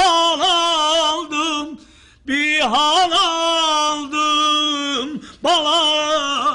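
A man singing solo and unaccompanied in Azerbaijani, in long held notes with ornamented wavering turns. He sings three phrases with short breath pauses between them, the second being the longest.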